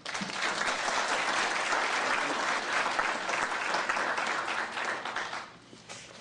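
Audience applauding, which dies away about five and a half seconds in.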